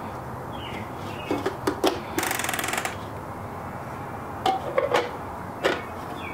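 Hard plastic clicks and knocks as the hopper of a Baratza Encore burr grinder is seated and turned, with a short burst of rapid clicking about two seconds in. Birds chirp faintly.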